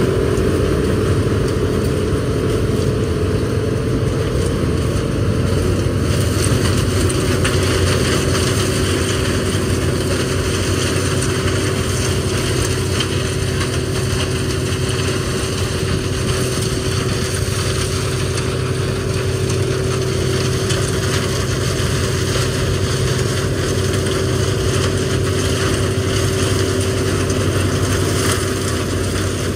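CLAAS Mega 204 combine harvester running steadily under load while harvesting corn: a continuous machine drone with a constant steady tone over a low hum. It drops slightly in level near the end.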